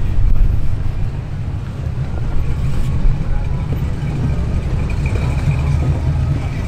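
Rock-crawler buggy's engine running under load as it climbs a steep rock face.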